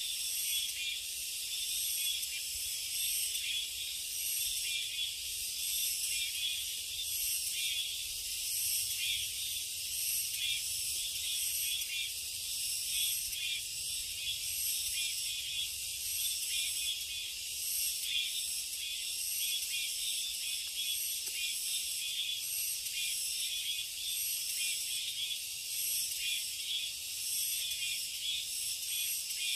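Dense chorus of summer insects in forest, a steady high-pitched buzzing and trilling that pulses slightly without pause.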